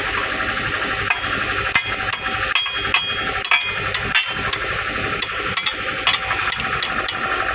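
Hammer blows on a chisel against the steel track shoes of an excavator's crawler track: sharp, irregular metal-on-metal strikes, about two a second, while working the shoes loose to change the track chain. A steady machine hum runs underneath.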